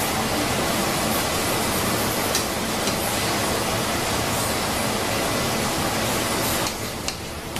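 Steady rushing background noise with a faint high whine and a few light clicks, dropping a little near the end.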